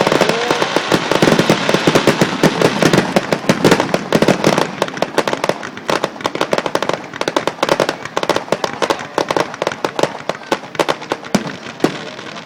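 Fireworks crackling and popping in a rapid, dense barrage of sharp reports that grows sparser over the last several seconds.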